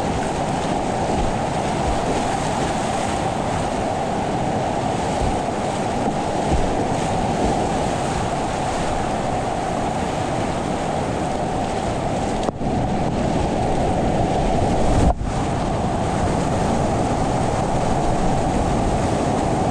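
Steady rush of whitewater in a steep class IV boulder-garden creek running at about 1280 cfs, heard from a kayak in the rapids. The sound dips out for an instant twice, a little past the middle.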